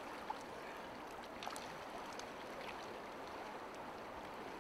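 River water running over the stony shallows at the bank, a steady gentle rush. Two faint ticks, one near the start and one about a second and a half in.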